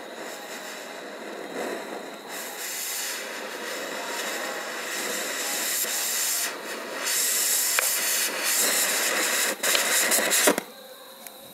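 Hydrogen gas, made from caustic soda and aluminium foil, hissing out of a syringe needle as a burning jet flame. The hiss grows louder and cuts off suddenly near the end.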